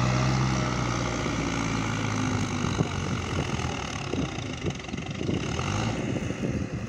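Belarus tractor's diesel engine working hard under load, pulling a trolley loaded with soil that is stuck in soft ground. A steady engine drone turns rougher and uneven, with short crackles, from about a third of the way in.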